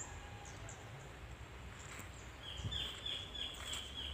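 Quiet open-air background hum, with a bird giving a run of short, high chirps about three a second, starting a little past halfway through.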